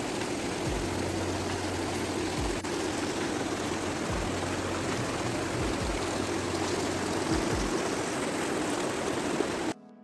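Steady rush of water from a cascading mountain stream, with a few low thumps on the microphone. The water sound cuts off abruptly near the end.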